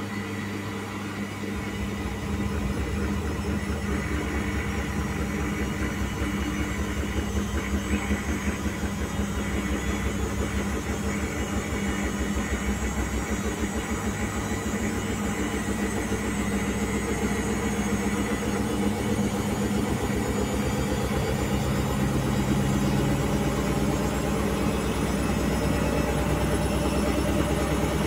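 Indesit front-loading washing machine slowly speeding its drum up towards spin with an unbalanced load and suds in the drum. A low rhythmic pulsing with each turn of the drum sets in about two seconds in and grows gradually louder, with a faint whine rising in pitch near the end.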